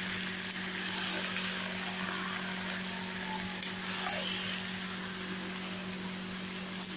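Chicken pieces and fried onions sizzling in hot oil in a kadai while a metal spatula stirs them, with two light clicks along the way. A steady low hum runs underneath.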